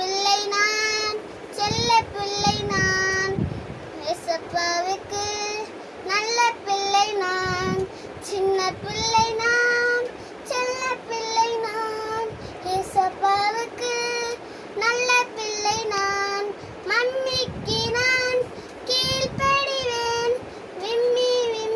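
A young girl singing solo, in phrases of held, sustained notes separated by short pauses for breath.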